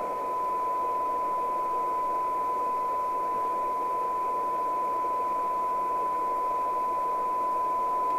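Fidelity 1000 FM CB radio's receiver putting out a steady test tone from a signal generator, mixed with even hiss: the set's receive sensitivity being measured for 12 dB SINAD, which comes out at about 0.65 microvolts.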